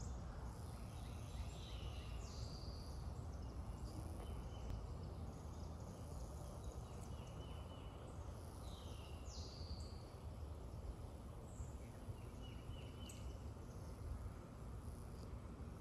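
Outdoor summer ambience: a songbird repeats short, falling whistled calls and brief trills every few seconds over a steady high insect drone, all above a constant low rumble.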